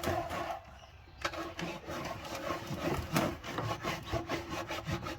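Hand rubbing crumbly raw propolis into the bare wood of a swarm trap box: short, irregular scraping strokes, about three a second, after a brief lull about a second in.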